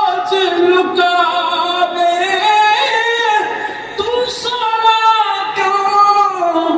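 A man's voice singing in drawn-out, melodic phrases into a microphone, with long held notes that slide up and down in pitch: sung religious verse rather than speech.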